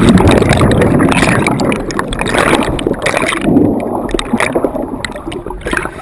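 Water bubbling and churning around a submerged camera, a dense rush full of small bubble clicks that slowly fades.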